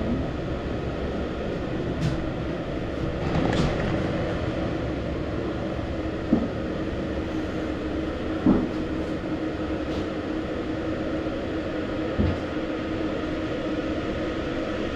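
Cable car cabin running along its ropes: a steady rumble and hum, with three short knocks spread through it.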